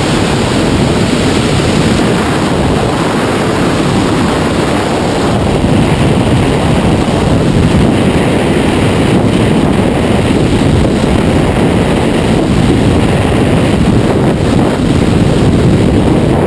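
Loud, steady rush of freefall wind buffeting a skydiver's helmet-camera microphone.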